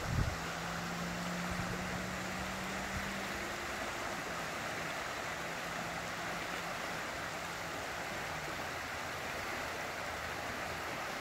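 Steady rush of a wide river flowing fast over shallow riffles. A brief low thump comes at the very start, and a faint low hum sits underneath.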